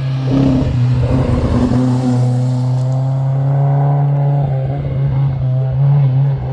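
Classic car engine running close by, holding a steady, low-pitched note with only small changes in pitch.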